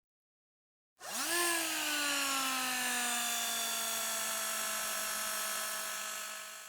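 A motor whirring up to speed about a second in: its pitch rises sharply, then settles into a steady whine that fades a little near the end.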